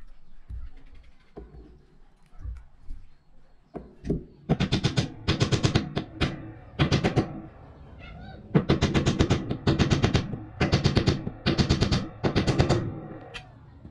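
A small metal part twisted and squeezed in needle-nose pliers, giving a run of short, harsh rattling creaks: about ten bursts of rapid clicking, each about half a second long, starting about four seconds in.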